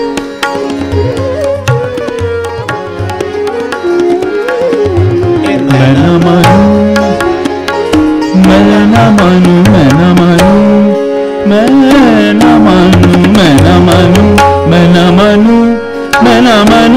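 Hindustani thumri: a male voice sings sliding melodic lines over tabla strokes and harmonium, with sitar. The music gets louder about six seconds in.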